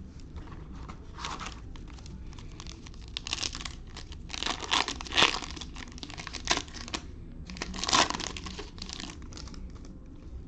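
The wrapper of a 2021 Optic basketball retail card pack being torn open and crinkled, in irregular crackly bursts that are loudest around the middle and again near the end.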